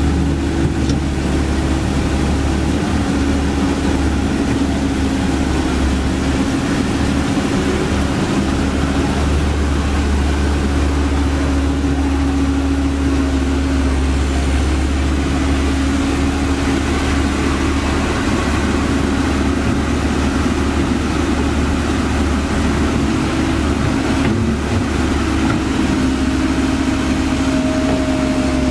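Komatsu PC130F excavator's diesel engine running steadily with its hydraulic drone as it tracks through shallow river water, over the rush of water pouring down a weir.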